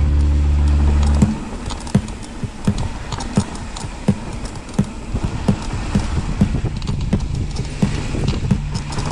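Rock music soundtrack: a loud held low chord cuts off about a second in. It gives way to a sparse, evenly paced run of drum hits, roughly one every two-thirds of a second, and a low sustained note comes back near the end.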